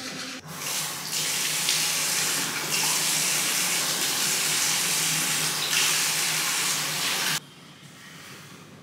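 Tap water running into a bathroom sink as a steady rush for about seven seconds, then shut off abruptly near the end.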